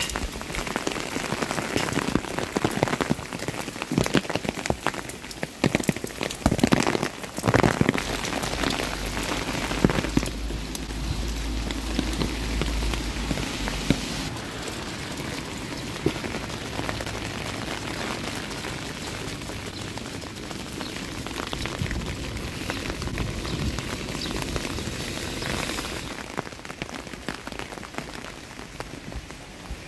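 Rain falling on hard surfaces, with many sharp drop hits in the first third. A low rumble runs underneath for several seconds before the middle.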